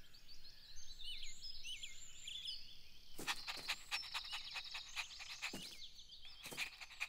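Faint cartoon garden ambience: short high bird chirps for the first two seconds or so, then a run of soft clicks over a thin, steady high note.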